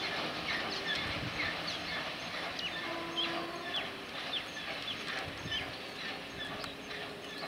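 Birds calling in short, falling chirps, several a second, over the low rumble of a freight train's last wagons and brake van running away.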